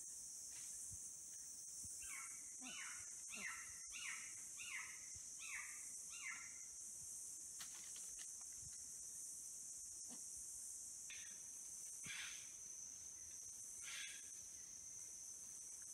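A steady, high insect chorus from the forest. A bird calls a quick run of about six short falling notes a couple of seconds in, then gives a few fainter single calls later.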